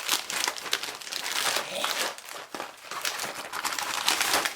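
Plastic kit packaging crinkling and crackling as it is handled and opened by hand, in a dense run of irregular sharp crackles.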